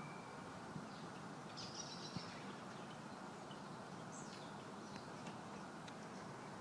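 Faint high bird chirps: a short cluster about a second and a half in and a falling call at about four seconds, over a steady background hiss of outdoor noise.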